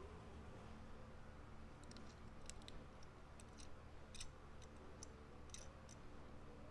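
Light, sharp clicks and taps of fingers handling a Tomica die-cast toy car and its wheels. About a dozen small clicks, some in quick pairs, start about two seconds in, over a faint low hum.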